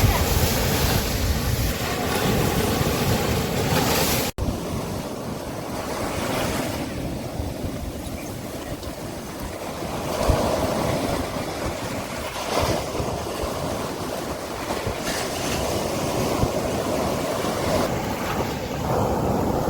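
Sea waves washing onto a beach, swelling and ebbing, with wind buffeting the microphone. A momentary drop-out about four seconds in.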